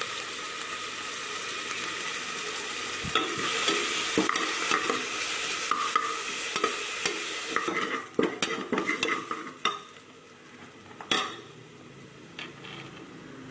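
Food sizzling in hot oil in a cooking pot while a spoon stirs and scrapes it, with a handful of sharp knocks of the spoon against the pot. The sizzle is loud at first and turns quieter about halfway through.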